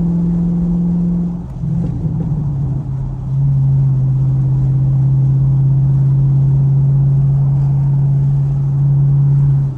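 Chevrolet Camaro SS V8 exhaust droning at a steady cruise, heard from the cabin with the windows down. About a second and a half in, the pitch drops and the sound dips briefly, then it settles into a steady low drone.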